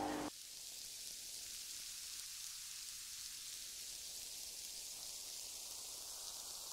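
Steady, even hiss with no distinct events, sitting mostly in the high frequencies.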